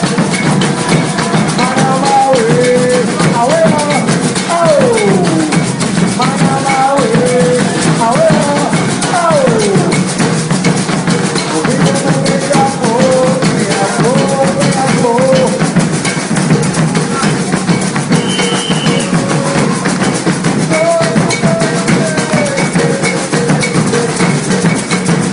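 Maracatu music: drums and shakers playing a steady beat, with a melody sliding up and down over it.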